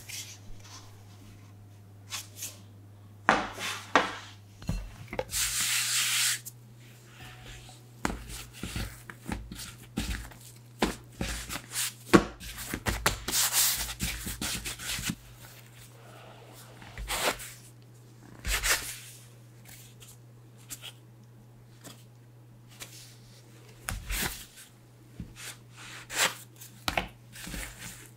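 Hands handling soft yeast dough on a floured wooden cutting board, with rubbing, patting and light knocks, then a plastic bench scraper cutting the dough into portions and tapping the board near the end.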